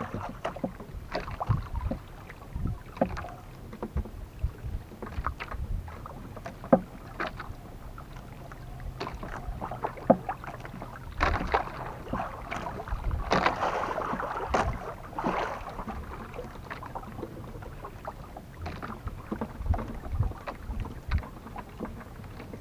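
Water lapping and slapping against a small wooden outrigger boat drifting at sea, with scattered clicks and knocks and a brief louder rush of water about two-thirds of the way through.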